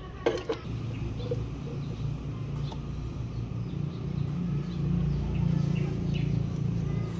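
A low, steady machine hum that grows a little louder about five seconds in, with a sharp clink about a quarter-second in and a few faint bird chirps.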